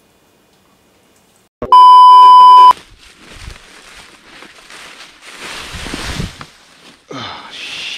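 A loud bleep, one steady high tone lasting about a second, is followed by a person crashing through dry fallen leaves. The rustle swells to a heavy crunch and thud of a fall a couple of seconds later.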